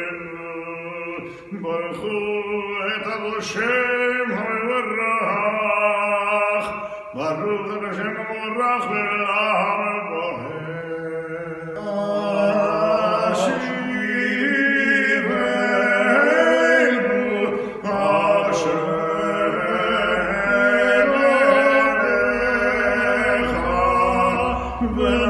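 A man singing a Jewish prayer chant unaccompanied, holding long notes that waver in pitch.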